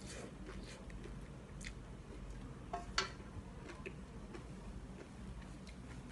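Quiet eating sounds: chewing, with scattered small clicks of a wooden spoon against an enamel wok. There is one sharper clack about three seconds in as the spoon is set down in the wok.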